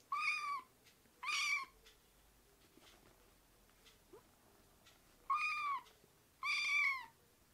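Kitten meowing four times in two pairs of short, high-pitched mews, each call arching slightly up and then down in pitch.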